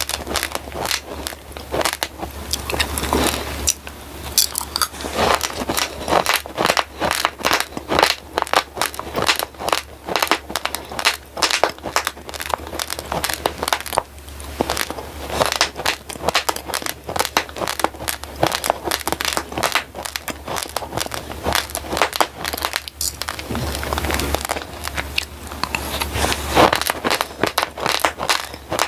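Raw glutinous rice grains crunched and chewed close to the microphone: rapid, crisp crackling crunches, a few per second, with brief pauses between mouthfuls, over a low steady hum.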